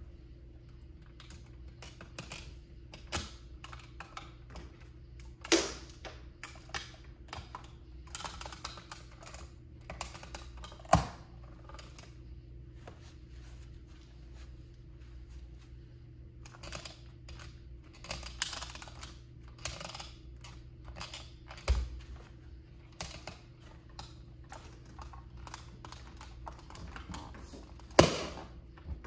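Toy Plymouth Prowler model car clicking and creaking as it is handled and then pressed under a bare foot: scattered light clicks, with a few sharper snaps, the loudest near the end.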